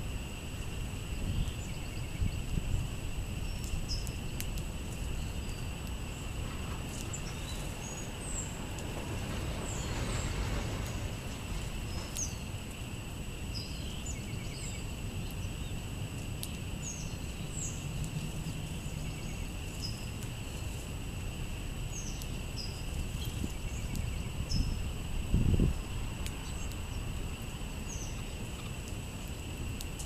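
Small songbirds giving short, high chirps scattered throughout, over a low steady rumble and a steady high hum. A brief low thump late on.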